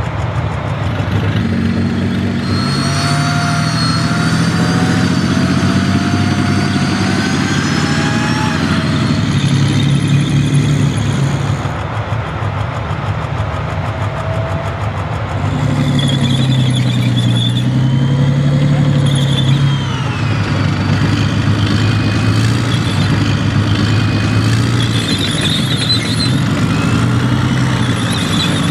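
Heavy vehicle engine running, with a whine that rises in pitch a few seconds in and more whine later; it eases off for a few seconds around the middle. This is a dubbed engine sound, not the plastic model itself.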